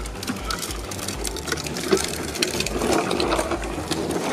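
Small electric mini dirt bike whirring as a child rides it slowly along the pavement, its motor and chain drive giving a steady mechanical whir, with scattered light clicks.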